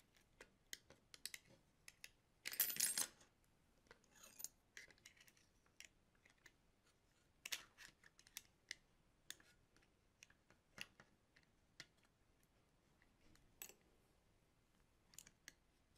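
Light metallic clicks and taps of a small open-end wrench and Allen key on a 3D printer's build-plate assembly as the nut of a V-track wheel is loosened, with one longer, louder scrape about two and a half seconds in.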